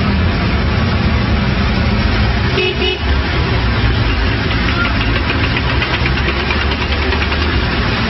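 Vehicle engines and traffic running steadily in a city street, with a short car-horn toot a little under three seconds in.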